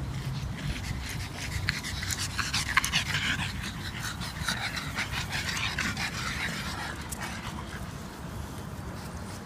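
Pug panting hard with quick rapid breaths, close up, strongest from about two to seven seconds in.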